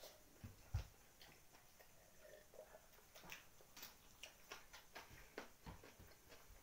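Faint eating sounds of two people eating a rice meal with their hands: scattered small clicks of chewing and lip smacking, and of fingers working food on the plates. A single low thump comes a little under a second in.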